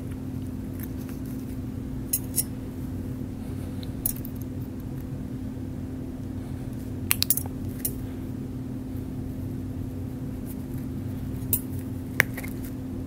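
Small metal suturing instruments, a needle driver and a curved needle, click sharply now and then as they grip and release, with a short cluster of clicks about seven seconds in. A steady low hum sits underneath.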